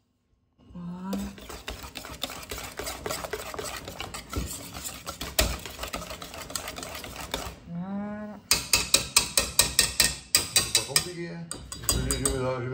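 Wire balloon whisk mixing flour and egg into batter in a stainless steel bowl, scraping and stirring steadily. From about eight seconds in it switches to fast beating, with sharp clinks of the wires against the bowl about four times a second.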